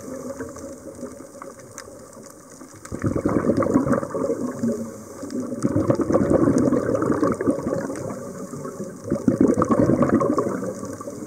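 Scuba regulator heard underwater: a diver's exhaled air bubbling out in rough, crackling rounds every few seconds, with quieter gaps between breaths.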